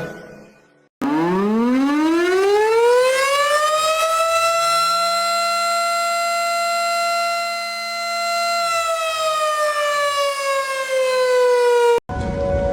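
Civil defense warning siren winding up from a low pitch to a steady wail over about three seconds, holding the tone, then slowly winding down before cutting off abruptly near the end.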